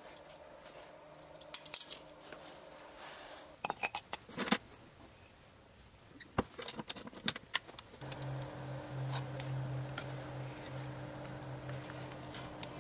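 Scattered metallic clinks and clanks of tongs and the tabletop electric furnace's steel door being handled, coming in small clusters. About eight seconds in, a steady low hum starts and holds.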